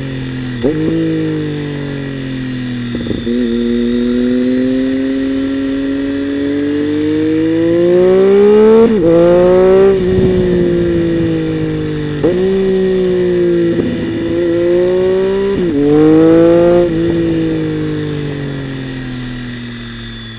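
Triumph Tiger Sport 1050's three-cylinder engine through a Dominator aftermarket exhaust while riding. The engine note climbs under acceleration and drops sharply at each of several gear changes, then runs at a steadier pitch and fades near the end.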